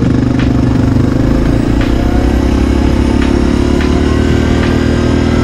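Yamaha Grizzly ATV's single-cylinder four-stroke engine running under way on a gravel road, its pitch climbing slowly as it gathers speed. A light tick repeats about every second and a half.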